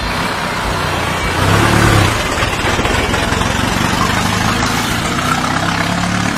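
Road traffic passing close by: vehicle engines running with tyre and road noise as a pickup truck drives past, the engine hum loudest about a second and a half in.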